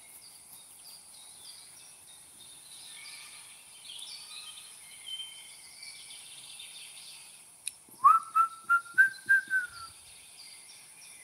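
Birds chirping around the water. About eight seconds in, a loud whistled tone lasts about two seconds, rising slightly in pitch and pulsing about six times.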